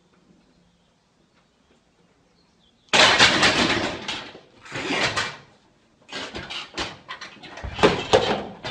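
Eleiko rubber bumper plates sliding off a tipping barbell and crashing onto the gym floor: loud sudden crashes starting about three seconds in, after near silence, and more clattering impacts in the last few seconds as the other side of the bar drops.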